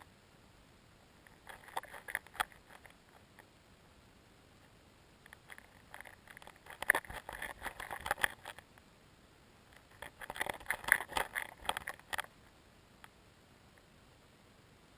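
Underwater crackling and clicking picked up in shallow lake water over a pebble bottom. It comes in three bursts: a short one about two seconds in, a longer one from about five and a half to eight and a half seconds, and another from about ten to twelve seconds, with quiet between them.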